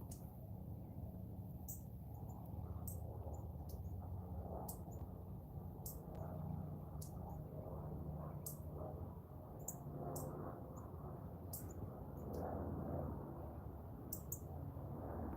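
Short, very high chirps of a small bird, one every second or so at irregular spacing, over a steady low background rumble.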